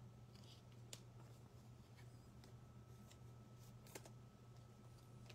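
Near silence: faint clicks and ticks of trading cards being handled and sorted, two a little louder about a second in and near four seconds, over a steady low hum.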